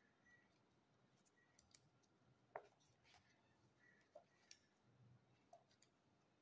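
Very faint handling sounds as the heavy pages of a wallpaper sample book are turned. There are a few soft clicks and ticks, the sharpest about two and a half seconds in.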